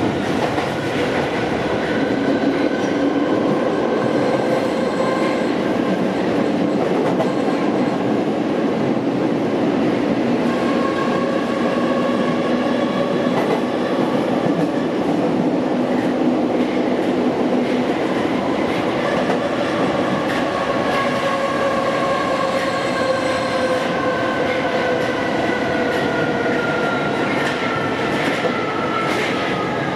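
An MF67 Paris metro train running through a tunnel, heard from inside the car: a steady rolling roar with motor whine. The whine's pitch slides downward over the last several seconds, and a few sharp clicks from the wheels on the rails come near the end.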